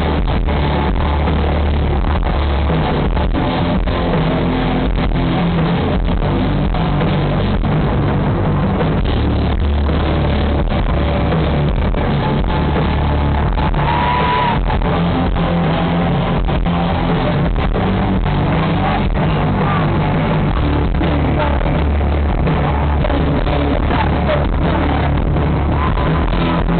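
Live rock band playing loudly through a PA, heard from within the crowd: electric guitars, bass and drums, with a steady drum beat.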